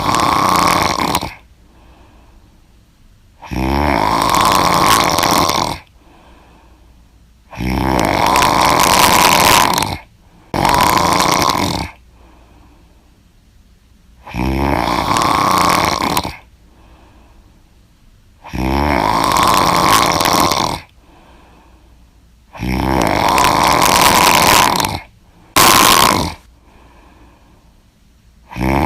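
A person snoring loudly: snores of about two seconds each, coming every four seconds or so, twice followed at once by a short extra snore.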